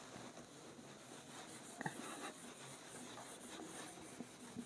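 Faint rubbing of a whiteboard eraser wiping marker off the board.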